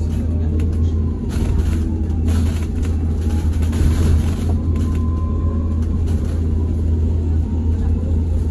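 Cabin noise inside a BYD ADL Enviro200 electric single-decker bus on the move: a steady, loud low rumble of road and running noise, with a faint whine that rises and falls now and then.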